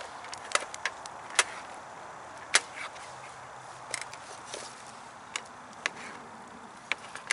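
Mushrooms being sliced by hand with a small knife, the pieces dropping into a plastic cup: irregular sharp clicks and taps, about a dozen, over a steady low hiss.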